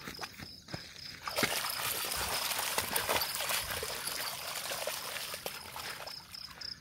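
A dog splashing and running through a shallow rainwater puddle: a rush of sloshing water starting about a second and a half in and fading near the end. A high chirping pulses quickly and evenly in the background.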